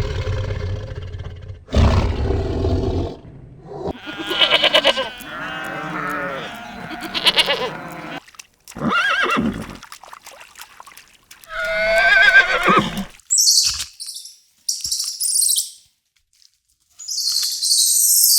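A series of separate animal calls, one after another: two low rough calls at first, then wavering pitched calls, two shorter calls, and near the end high hissing sounds.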